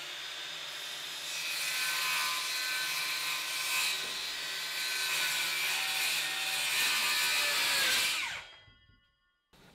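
Circular saw spinning up and cutting through a laminate flooring plank, a steady high whine and rasp for about eight seconds. It then winds down with a falling whine and stops.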